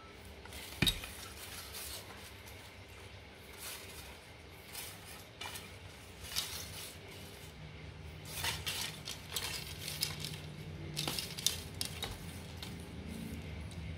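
Scattered light clicks and clinks of a carbon fishing rod being handled, turned and run through the hand, with a sharper click about a second in, over a faint low hum.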